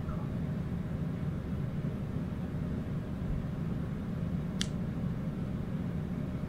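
Steady low hum of room ventilation, with one short sharp click about four and a half seconds in.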